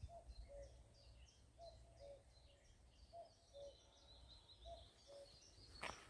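Common cuckoo calling, faint: the two-note 'cuck-oo' with the second note lower, four times at about one call every one and a half seconds. Small birds twitter higher behind it, and a single sharp knock comes just before the end.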